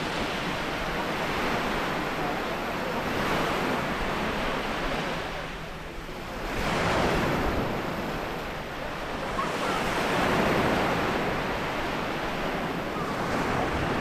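Sea waves breaking and washing up a stony shore. The surf rises and falls in several swells, with the biggest surge about seven seconds in.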